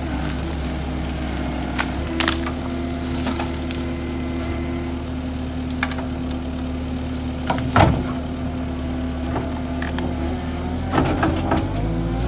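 Cat 277D compact track loader's diesel engine running steadily while it pushes through logs and brush, with wood cracking and snapping several times, loudest about eight seconds in.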